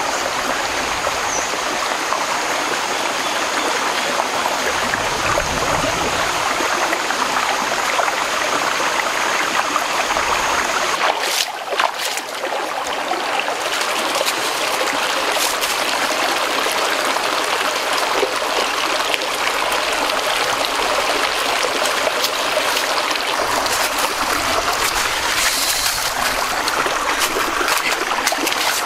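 Shallow rocky stream trickling steadily over stones, broken briefly about eleven seconds in.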